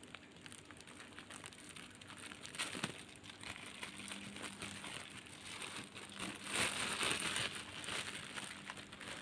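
Plastic bag crinkling and rustling as it is handled and opened, in many small crackles, loudest for a second or two about two-thirds of the way through.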